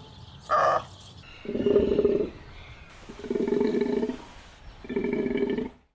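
A takin calling: one short, higher call, then three drawn-out low bellows of almost a second each, spaced about a second and a half apart.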